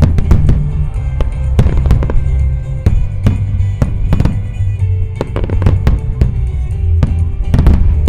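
Wide star mine fireworks display: aerial shells bursting in quick succession, about two to three sharp bangs a second, some echoing. Music with a heavy, steady bass plays underneath.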